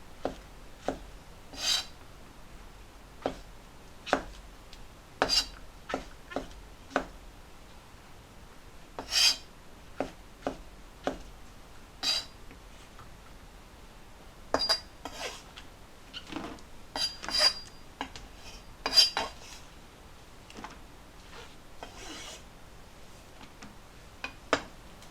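Food-preparation handling sounds: irregular clicks, knocks and short scrapes of utensils and dishes.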